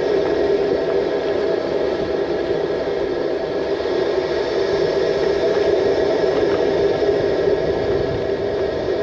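A vehicle driving slowly over gravel, heard as a steady, even rumble of engine, tyres and air from a camera mounted outside the car.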